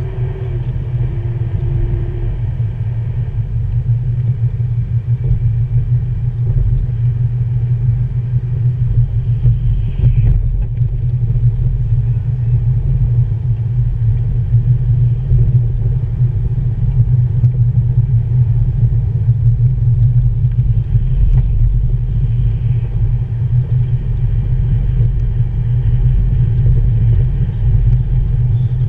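Road and engine noise of a moving car heard from inside the cabin: a steady low rumble that grows a little louder over the first few seconds, then holds.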